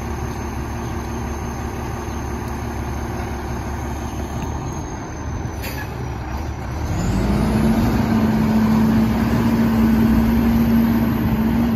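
Autocar WX rear-loader garbage truck's diesel engine idling, with a single sharp knock; about seven seconds in the engine revs up and holds at a steady higher pitch as the truck pulls ahead.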